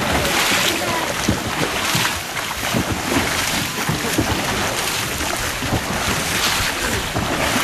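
Long wooden oars of a sampan splashing repeatedly into fast-running river water, over a steady rush of churning water.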